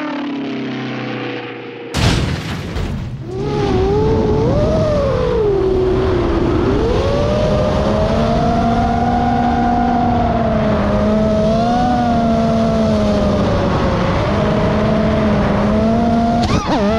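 FPV quadcopter's motors whining over wind rush on the onboard microphone, the pitch rising and falling with the throttle. A sudden loud noisy burst comes about two seconds in, and near the end the pitch swings rapidly, with sharp knocks.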